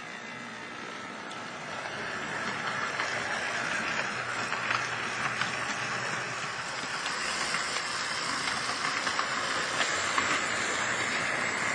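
Model German trams running on a model railway track: a steady whir of the small motors and wheels on the rails, with light clicks, growing louder over the first couple of seconds.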